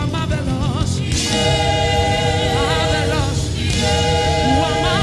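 Live gospel praise music: several voices sing together in long held notes with vibrato over backing music, in two phrases with a brief dip between them.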